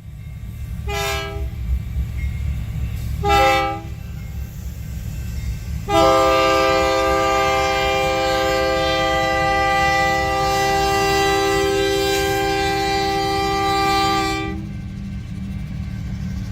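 Nathan K5LLA five-chime air horn on a BNSF locomotive sounding two short blasts, then one long blast of about eight and a half seconds, over the steady low rumble of the train.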